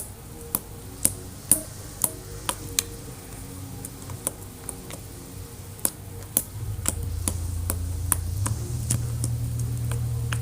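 Green slime being squeezed and kneaded, giving irregular sharp clicks and pops as air pockets burst, about one or two a second. A steady low hum comes in past the middle.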